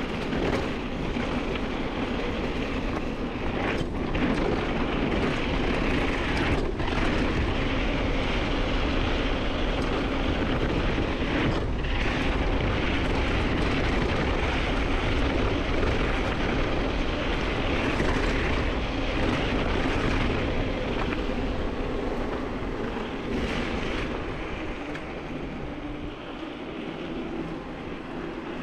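Steady rush of wind on the microphone with the rumble and rattle of a mountain bike riding a dirt trail, and a few sharp knocks as it goes over bumps.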